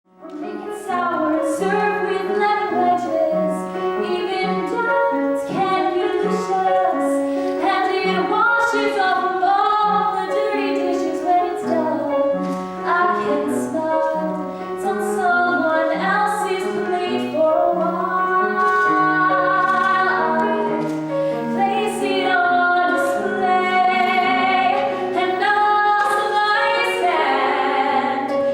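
A woman singing a musical-theatre song solo over an instrumental accompaniment, with vibrato on the held notes.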